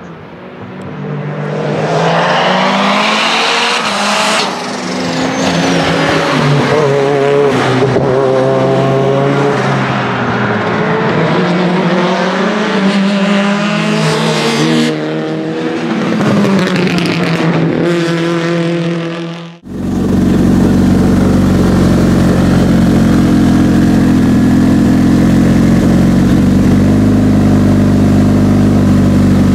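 Lancia Delta HF Integrale EVO Proto's 500 hp 2.0-litre turbocharged four-cylinder revving hard as the car laps, its pitch climbing and then dropping at each quick sequential-gearbox upshift, with a few short sharp cracks. About two-thirds of the way in the sound switches to the same engine running steadily up close at a constant pitch.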